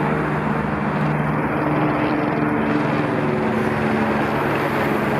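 Police helicopter flying overhead, its rotor and engine making a steady pulsing drone.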